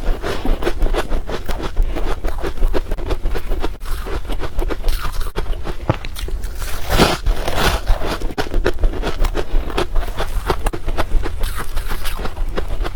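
A person chewing crushed ice, a dense, continuous run of crisp crunches.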